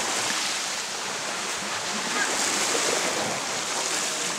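Small sea waves washing on the beach, a steady rushing hiss of water.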